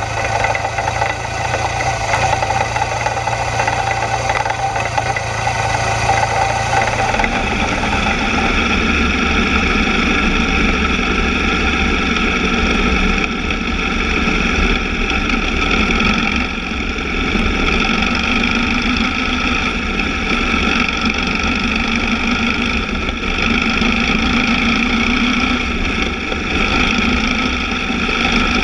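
BMW GS adventure motorcycle's twin-cylinder engine running at a steady pace while riding, heard through a camera mounted on the bike. About seven seconds in the sound changes abruptly as the view switches to a camera mounted low beside the wheel.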